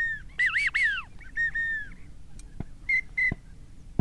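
Duck whistle call blown in a run of clear whistles near one pitch: some arch up and fall away, others are short flat peeps, the kind of pintail or wigeon whistle used to draw passing ducks in. Two light knocks come near the end.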